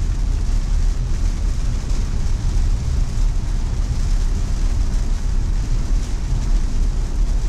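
Cabin noise of a 2020 Tesla Model Y driving on a rain-soaked road: a steady low road rumble with an even hiss of tyres on wet pavement.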